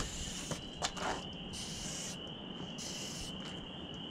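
A steady high-pitched whine with a faint hiss over it, and a sharp click at the start with another just under a second in.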